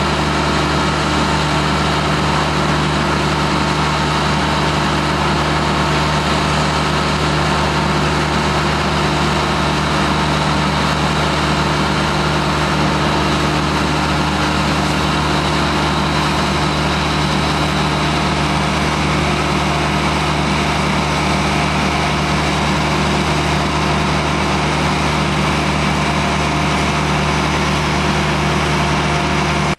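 A motor engine running steadily at one constant speed, with no revving or change in pitch.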